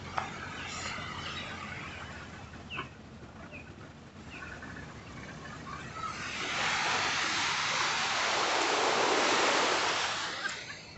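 Sea surf washing up a sandy beach: one wave comes in as a loud, even hiss about six seconds in, swells, and fades away after about four seconds. Before it, a quieter wash with a few faint bird chirps.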